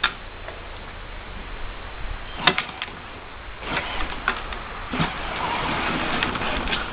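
Battery-powered Barbie Jeep ride-on toy driving over dirt and gravel: a steady rolling noise from its plastic wheels and electric drive, growing louder about halfway through, with several sharp clicks and knocks.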